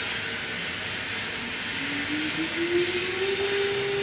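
JX-6090 CNC router's spindle motor spinning up as the machining job starts: a whine that rises in pitch from under two seconds in and levels off into a steady tone near the end, over a steady rushing hiss.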